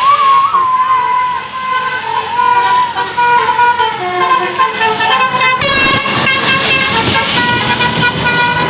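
A tour bus's 'telolet basuri' musical horn playing a tune: a string of held horn notes stepping in pitch, louder and fuller from about six seconds in.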